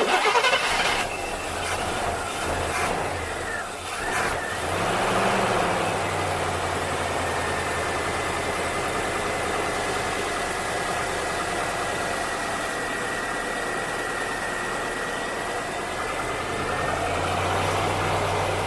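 1964 Rambler American's engine starting on a shot of starter fluid, bursting into life at once, revving briefly about four to five seconds in, then settling into a steady idle. It runs rough, typical of an engine that has sat unused for a while.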